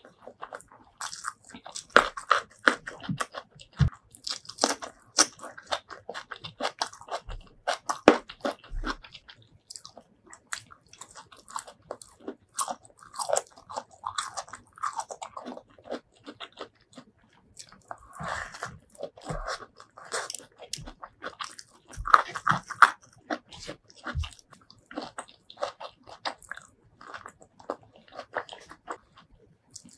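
Close-miked chewing and crunching of raw vegetables, petai beans and long beans, eaten with rice and sambal: crisp crunches in irregular bursts throughout.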